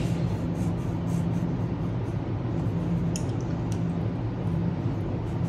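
Steady low mechanical hum of room background noise, with two faint ticks about three seconds in.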